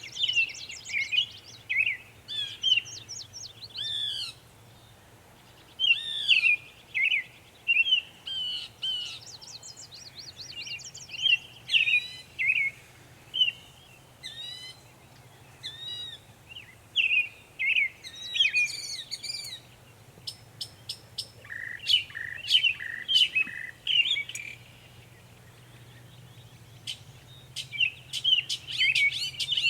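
Northern mockingbird singing: a string of varied chirps and whistled phrases, each repeated several times before switching to the next, with a pause of a couple of seconds near the end.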